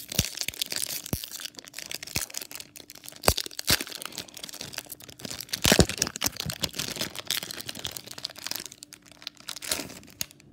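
Foil wrapper of a Pokémon trading card booster pack crinkling and tearing as it is ripped open by hand, with sharp crackles of the foil now and then.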